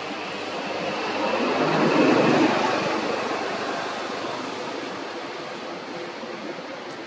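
A vehicle passing by, its noise swelling to a peak about two seconds in and then fading away, over a steady background hiss.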